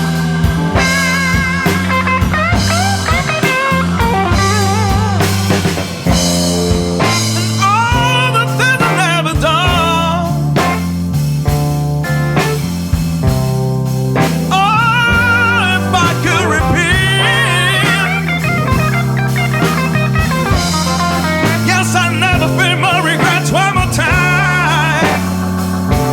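Blues-rock band playing an instrumental break: a lead guitar with bent, wavering notes over bass, drums and organ.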